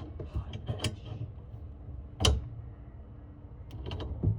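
Scattered sharp clicks and knocks of parts and tools being handled during a faucet installation, with a few quick clicks in the first second, one louder knock about two seconds in, and a few more clicks near the end.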